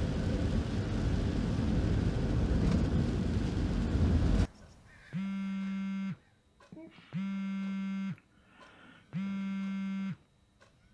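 Engine and road noise inside a moving van, cut off suddenly about four seconds in. Then a mobile phone rings three times, each ring a steady buzzy tone about a second long, two seconds apart.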